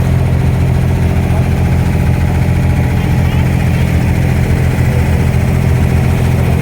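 An abra water taxi's diesel engine running steadily, a low even drone with no change in speed.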